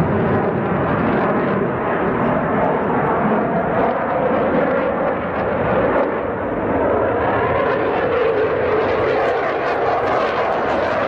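Dassault Rafale fighter jet's twin Snecma M88 turbofans, a loud, steady jet noise as the aircraft turns overhead, its pitch shifting slowly.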